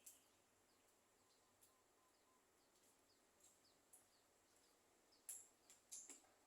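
Faint, high bird chirps: short falling notes at a steady trickle, with a few louder, sharper chirps at the very start and again about five to six seconds in.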